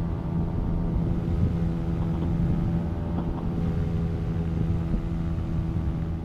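Minari Stratos 400cc two-stroke twin-cylinder boxer paramotor engine running steadily in flight, turning the propeller at a constant cruise setting, with wind buffeting the microphone.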